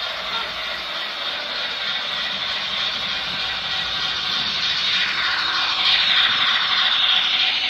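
H0 model train running on the layout's track, a steady mechanical whirr of motor and wheels on rails that grows louder about five seconds in.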